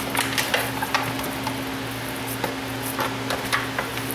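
Bare hands squeezing and rolling raw ground beef and sausage meatloaf mix in a disposable aluminium foil pan: irregular wet squelches and little crackles and clicks as the meat and the foil pan are pressed. A steady low hum runs underneath.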